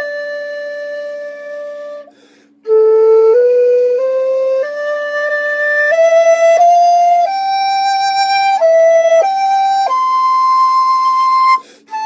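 Instrumental music with a flute-like lead: a long held note, a short break, then a melody climbing note by note to a high held note, over a steady low drone.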